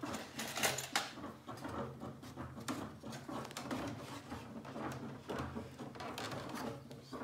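Irregular clicks, taps and rustles of gloved hands working a steamed wooden rib into a boat's thin wooden stringer frame, with a steady low hum underneath.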